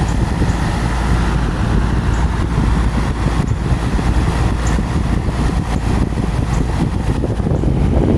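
Lennox package heat pump running in cool mode: a steady, loud drone of the outdoor fan and compressor.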